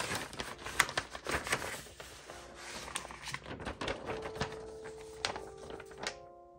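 Paper rustling and crinkling, with quick irregular taps and clicks, as a handmade paper blind bag is handled and opened.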